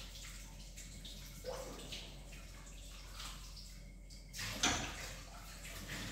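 Dishes being washed by hand at a kitchen sink: water splashing and trickling, with dishes knocking now and then and one louder clatter about four and a half seconds in.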